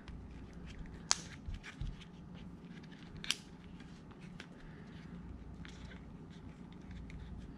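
Handling noise from a plastic spring-loaded phone clamp and a silicone band being stretched over the phone's corners: light rubbing and small clicks, with two sharper clicks about a second in and just after three seconds in.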